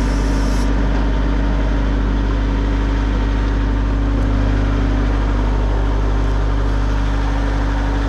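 Compact tractor's engine running steadily at a constant speed, driving the PTO hydraulic pump of a backhoe attachment as the boom is worked. A brief high hiss sounds at the very start.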